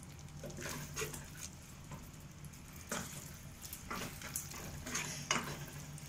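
A black plastic spatula stirring and scraping a thick onion-tomato-curd masala around a non-stick kadai, with irregular scraping strokes about once a second. The masala sizzles lightly as it fries over medium-high heat.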